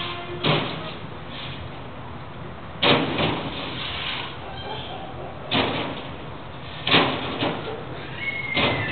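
Dog barking: five sharp single barks, spaced unevenly one to three seconds apart.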